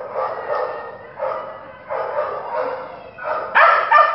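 A dog barking over and over in excited bursts, about one a second, loudest near the end.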